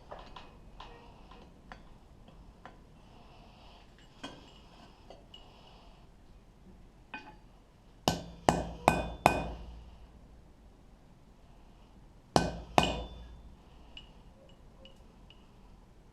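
Hammer striking a punch to drive the pip marks into an iron die: four quick ringing strikes about eight seconds in, then two more about four seconds later. Light clinks of tools being handled come between.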